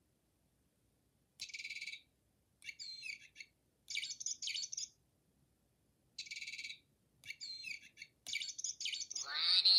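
Bird chirps in short bursts with silence between them, plausibly from a toy bird: the same run of chirps plays twice, and a longer, louder chirping burst starts near the end.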